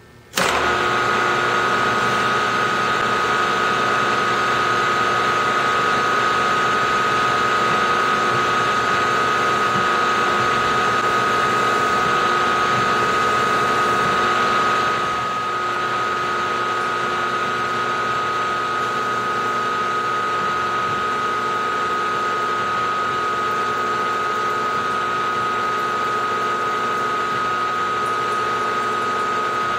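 Milling machine spindle running with a steady high whine while a drill bores a hole in a metal block held in the vise. The sound comes in suddenly about half a second in and drops a little halfway through.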